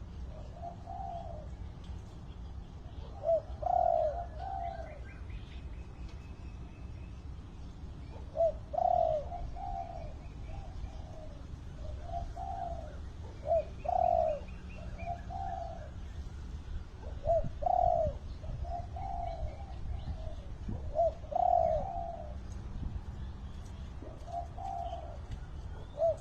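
Spotted dove cooing: short phrases of a few low notes, repeated every few seconds. Faint chirps of other small birds and a steady low rumble sit underneath.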